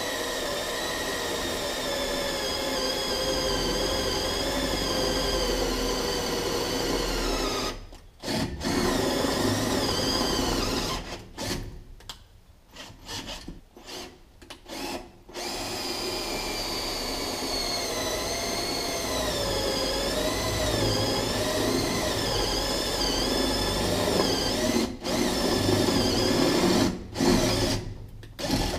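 Einhell TE-CD 12 Li 12-volt cordless drill driver drilling a 6 mm hole through a 2 mm-thick metal tube, its motor whine wavering in pitch as the bit cuts. The drill stops and restarts several times: a short pause partway through, then a run of quick on-off trigger pulses, then a long steady run with a few brief stops near the end.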